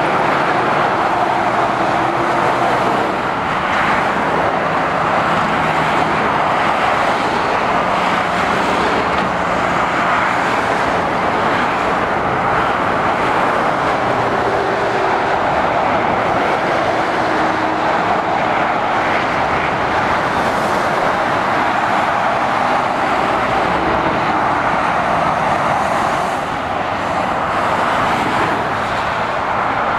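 Road traffic of lorries and cars passing below: a steady rush of tyre and engine noise, with the low hum of heavy lorry engines beneath it.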